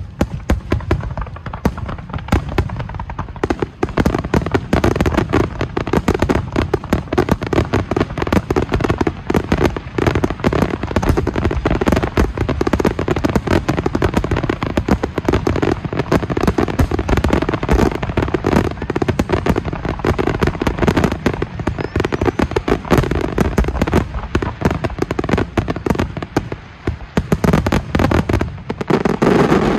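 Aerial fireworks in a finale barrage: many shells bursting at once in a dense, unbroken stream of bangs and pops, growing louder briefly near the end.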